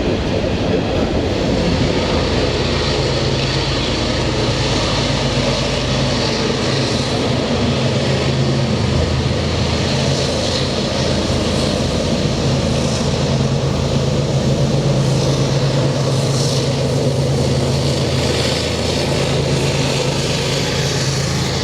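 Norfolk Southern diesel locomotives passing on a westbound train, their engines making a loud, steady deep drone with rail noise underneath.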